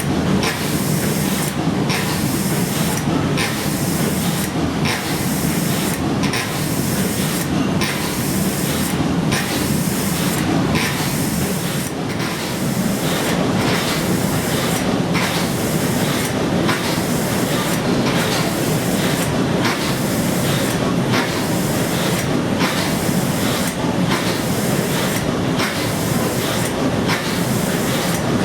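Escher Wyss steam engine of a paddle steamer running steadily. Its hiss and mechanical clatter pulse in an even rhythm, a little more often than once a second.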